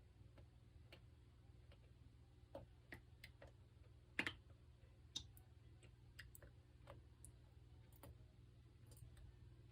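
Goldfish grinding its pharyngeal (throat) teeth, not chewing food: scattered, irregular faint clicks about one or two a second, the loudest one about four seconds in, over a steady low hum.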